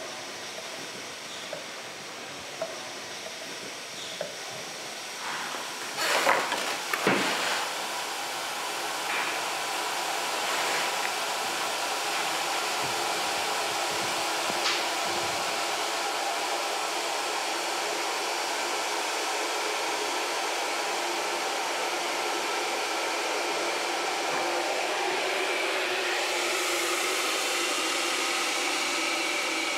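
Coffee being scooped and handled with a clatter about six seconds in, then an electric coffee grinder runs with a steady whir for over twenty seconds, its sound growing higher and brighter near the end as the grinder runs empty.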